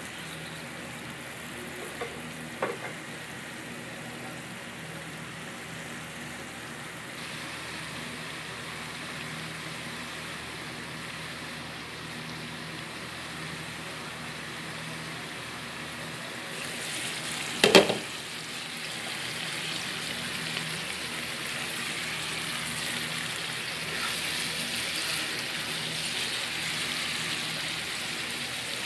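Squash and shrimp sizzling in a nonstick wok, stirred with a wooden spoon, with a few light clicks early and one loud clack about two-thirds of the way through; the sizzle is louder after the clack.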